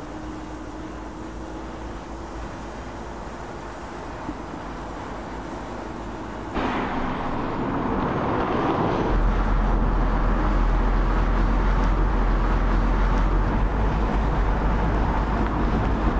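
Audi A3 Sportback driving on the road: a steady engine hum with a slowly rising note at first, then suddenly louder engine and tyre noise about six and a half seconds in, with a deep rumble underneath from about nine seconds in.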